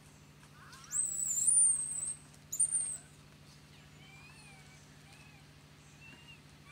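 Baby long-tailed macaque squealing: a long, shrill, very high-pitched cry about a second in, then a shorter one, followed by faint chirping calls. A steady low hum sits underneath.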